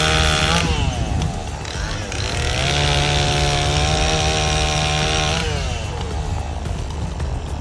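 Chainsaw engine revved to full throttle and held, dropping back toward idle just under a second in. It is revved up again at about two and a half seconds, held for about three seconds and released near the five-and-a-half-second mark. A low, steady engine rumble runs underneath.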